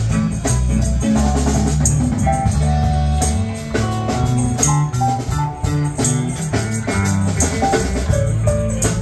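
Small live band playing drums and guitars together: a steady drum beat under strummed and picked guitar.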